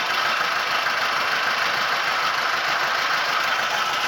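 Engine running steadily, a continuous even drone with no change in speed.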